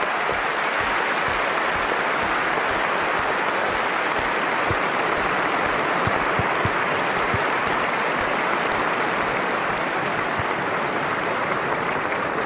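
Steady applause from a large audience.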